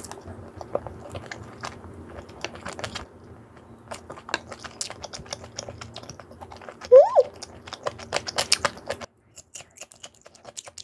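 Close-miked biting and chewing of basil-pesto-sauced fried chicken topped with tomato: a run of crisp crunches and clicks. About two-thirds through, a short tone sweeps sharply up and back down, the loudest sound, and the background hum cuts out abruptly about two seconds before the end.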